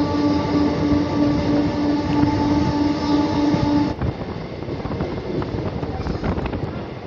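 Train horn held steadily for about four seconds over the running noise of a moving train, heard from an open carriage door. The horn cuts off suddenly, and the rolling train with wind rush carries on.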